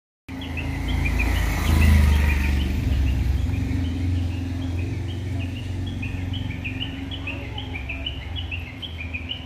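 Small birds chirping over and over in quick, short calls, over a low rumble that is loudest about two seconds in and slowly fades.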